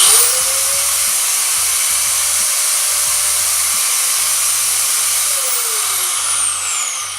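Grand МШУ-125-1250 angle grinder switched on: it starts suddenly and spins up to a steady high whine. About five and a half seconds in it is switched off and coasts down, the whine falling in pitch and fading.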